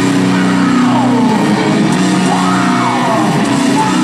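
Hard rock band playing live and loud, with sustained distorted notes and sliding pitch bends, heard from within the audience with little deep bass. Fans yell and whoop over the music.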